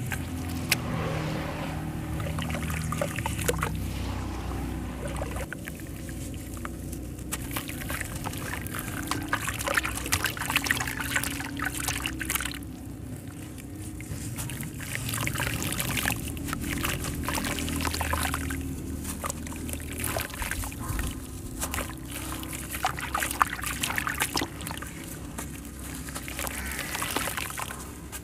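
Hands squeezing and crumbling a soaked sand-cement chunk under water in a plastic tub: gritty crackling crumbles mixed with water sloshing and trickling, coming in runs with short lulls.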